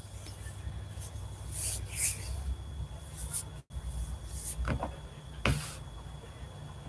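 Quiet room tone picked up by a computer microphone: a steady low hum with a faint thin high whine, broken by a few brief soft noises.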